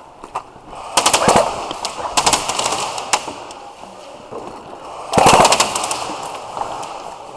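Airsoft electric guns (AEGs) firing short full-auto bursts: a rapid run of shots about a second in, a shorter one a second later, a single shot, and another burst about five seconds in.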